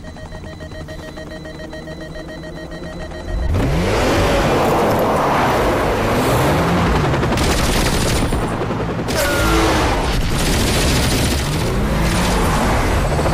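Action-film sound mix: a steady car engine drone, then about three seconds in a sudden loud din of helicopter machine-gun fire and blasts, with the engine still running underneath.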